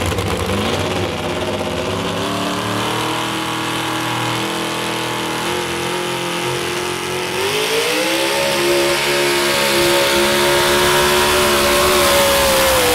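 Supercharged engine of a modified 4x4 pulling truck revving as it starts a pull. It climbs in pitch about a second in and holds steady, then about 7.5 s in it climbs sharply to a high, louder, sustained pitch as the truck pulls the sled, with a hiss of tyres throwing dirt on top.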